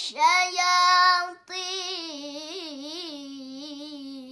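A young girl chanting Qur'an recitation in the melodic tilawah style, stretching vowels into long ornamented notes whose pitch wavers up and down. There is a short break about a second and a half in, then another long held note.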